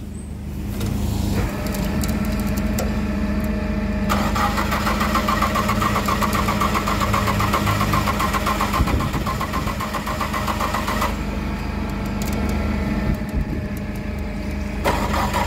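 Flatbed tow truck's engine running at raised revs to drive the winch pulling a machine up onto the bed. A higher whine from the winch drive rides over the engine from about four to about eleven seconds in.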